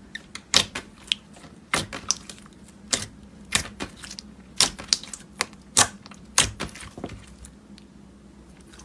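Slime being pressed and worked, giving a string of sharp clicking pops at an irregular pace, about one or two a second, stopping near the end.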